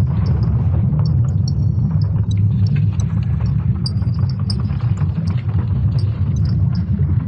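Space data turned into sound: a steady deep rumble with scattered faint high clicks and brief chirps above it.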